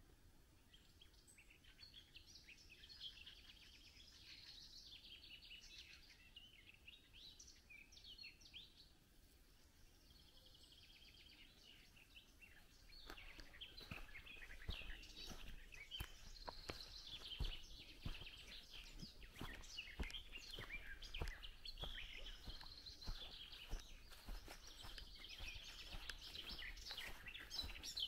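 Faint chorus of songbirds chirping and singing. About halfway through, footsteps on a dirt path join in at about two steps a second.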